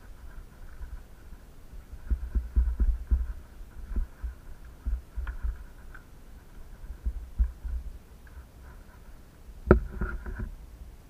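Dull, irregular low thumps from a camera being carried by someone walking along a dirt and grass trail: footfalls and handling knocks, with a faint steady high hum behind them. A sharper knock near the end.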